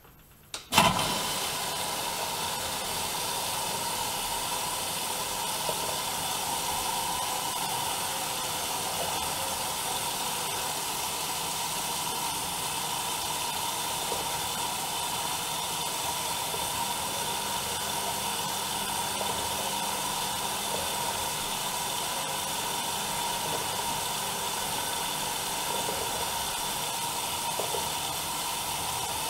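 Bauknecht WAE8575 washing machine starting its water intake: a click about a second in, then a steady hiss of mains water filling the machine at the start of the wash cycle.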